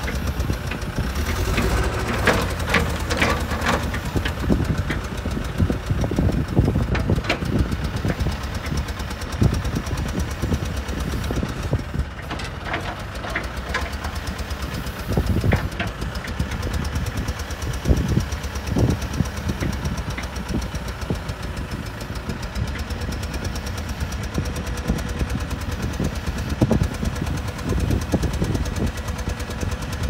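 John Deere 310G backhoe loader's diesel engine running under load as the backhoe boom, dipper and bucket are worked, with sharp knocks from the working backhoe scattered through, a quick cluster of them a couple of seconds in.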